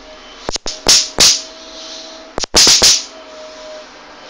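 Electric fly-swatter racket zapping a fly that is still alive on its mesh, with sharp snapping cracks. Two come in quick succession about a second in and two more just before three seconds, with a few fainter clicks between them.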